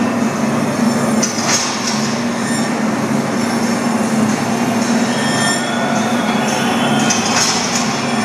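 Heavy metal band playing live in a large arena, heard from the stands as a loud, steady, dense wash of sound.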